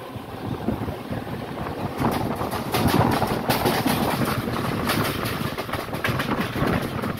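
Mumbai suburban EMU local train running at speed, heard from its open doorway: a steady rumble of the wheels on the track with a rapid clatter of clicks, louder and busier from about two seconds in.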